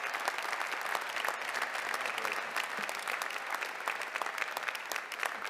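A large audience applauding: many hands clapping in a dense, steady patter.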